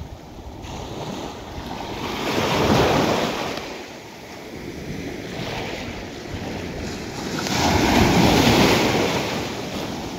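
Small sea waves washing in over shallow water against a rocky shore, swelling twice: loudest about three seconds in and again around eight seconds.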